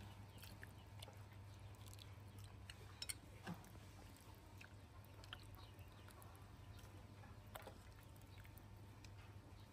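Near silence: a faint low hum with a few soft scattered clicks.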